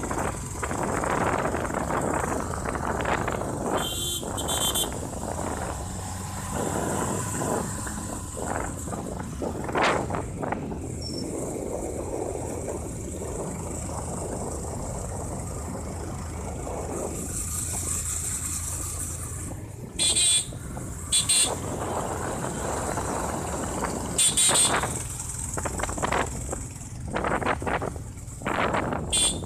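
A motorcycle running along a road, with wind and road noise filling the phone's microphone, a steady engine hum underneath, and a few brief sharp sounds over it.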